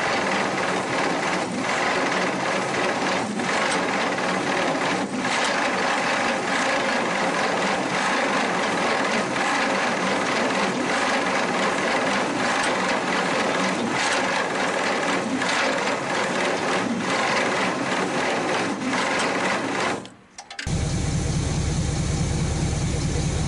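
Starter cranking a Chrysler industrial 218 flathead six over steadily without it catching; the engine has sat for decades and is low on compression. The cranking stops about twenty seconds in, and after a short gap an engine runs steadily with a low pulse.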